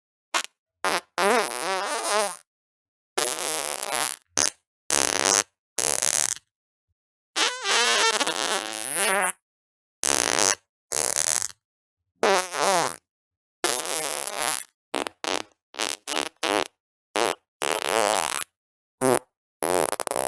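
A rapid run of farts, one after another: short pops and longer wavering, rasping ones of a second or two, each cut off by dead silence before the next.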